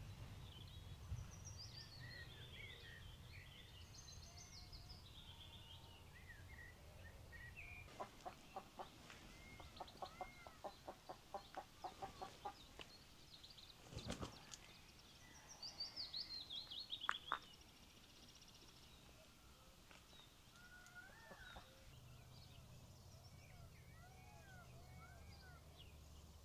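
Wild birds calling and singing: high, falling trilled songs and twitters, and in the middle a long run of rapid, evenly spaced clucking calls. A faint low hum sits under the start and the end.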